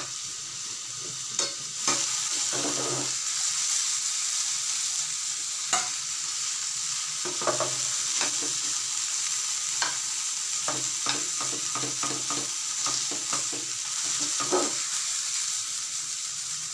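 Vegetables (capsicum, beans, carrot and onion) sizzling steadily as they stir-fry in oil in a frying pan, with the scrape and clink of a metal slotted spoon against the pan at irregular moments.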